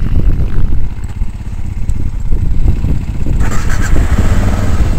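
Motorcycle running under heavy wind buffeting on a helmet camera's microphone, a loud, steady rumble; about three and a half seconds in, a brighter rushing hiss joins it.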